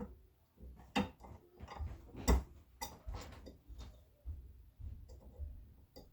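A 3/32 pin punch being struck to drift a stuck front sight out of a pistol slide's dovetail: a series of irregular sharp metal taps, the loudest a little over two seconds in.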